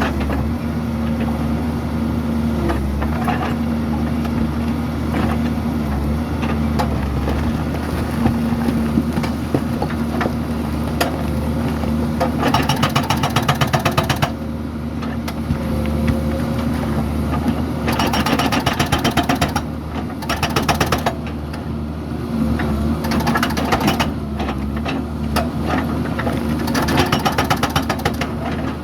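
Doosan DX140W wheeled excavator's diesel engine running steadily under work. Several times a rapid, even clattering lasting a second or two rises over it.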